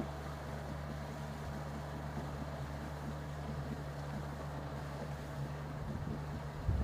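A paddlewheel boat's motor running with a steady low hum. Wind buffets the microphone near the end.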